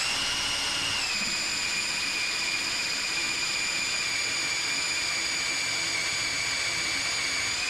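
Drill running steadily, its 1/8-inch pilot bit boring into a steel ball-joint rivet at deliberately low speed. The high whine dips slightly in pitch about a second in, then holds steady.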